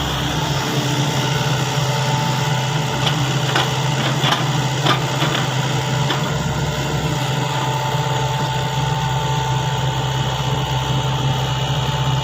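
Sany excavator's diesel engine running steadily, with a few short knocks about three to five seconds in.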